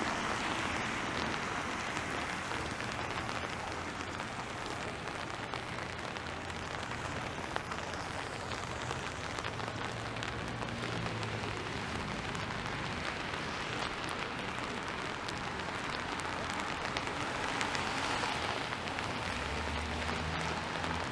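Steady hiss of rain falling on wet pavement, with the low rumble of passing traffic swelling now and then.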